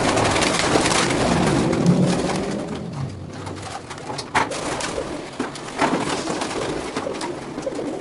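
Domestic pigeons cooing while the flock flaps its wings, leaving their loft cages in a dense rush of wingbeat noise that starts suddenly, with a few sharp claps or knocks about halfway through.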